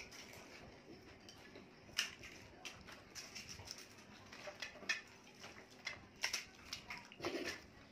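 Scattered small crunches and clicks of crisp panipuri shells being cracked open with fingers and chewed.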